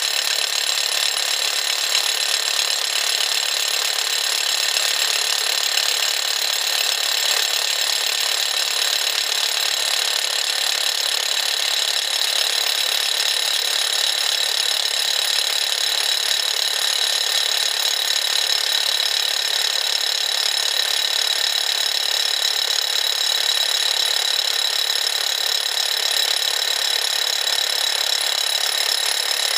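Bosch 11245EVS rotary hammer drilling steadily into solid rock with a dull 1.5-inch bit: a continuous, even hammering noise with a high ringing tone on top.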